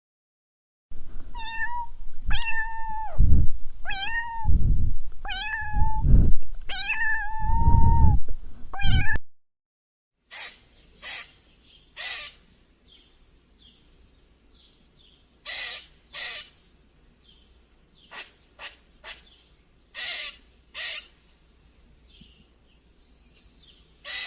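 A cat meowing about six times in a row, each meow a pitched call that bends at its end. After a short pause it gives a string of brief, breathy noise bursts.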